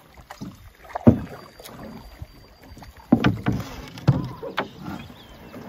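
Several hollow knocks and thumps of people and gear shifting against a canoe hull as the loaded canoe is landed at the shore, with a cluster of knocks about three to four seconds in.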